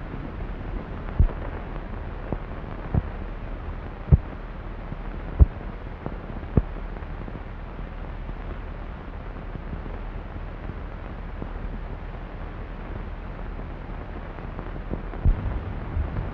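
Steady hiss and low hum of an old optical film soundtrack, with a handful of sharp low pops scattered through it, six in the first seven seconds and two more near the end.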